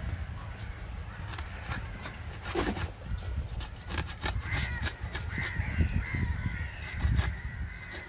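Knife work on fish: irregular sharp clicks and knocks over a steady low rumble.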